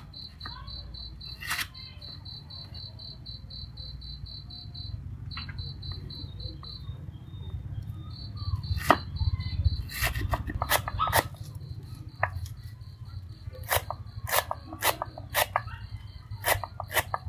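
A cleaver slicing through fresh lemongrass stalks onto a wooden chopping board, with sharp knocks of the blade. The first half has only a few single strokes. From a little past halfway there is a quicker run of chops, about two a second.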